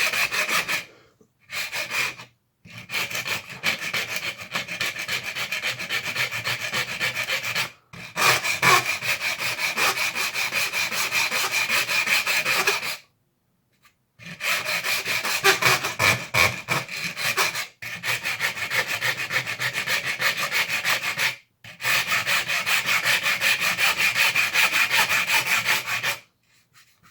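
Hand file rasping back and forth across the Knockout's body in quick, steady strokes, in runs of several seconds separated by short pauses, stopping near the end.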